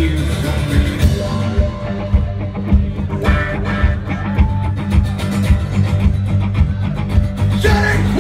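Live rock band playing, with electric guitars over a drum kit keeping a steady beat.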